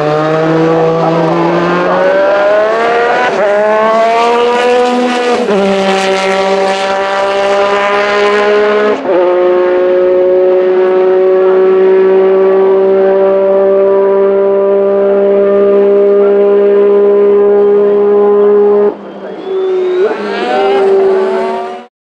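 Lotus 97T's 1.5-litre Renault turbocharged V6 accelerating hard: the note climbs and falls back through several upshifts, then holds a steady high pitch for about ten seconds. Near the end it drops as the driver lifts off, rises briefly once more, and cuts off suddenly.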